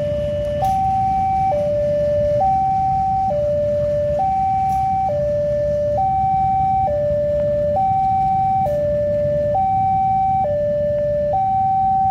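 Railway level-crossing warning alarm sounding a steady two-tone hi-lo signal, switching pitch about every second, with fainter higher tones alternating alongside. Under it, the low rumble of a train of fuel tank wagons rolling past.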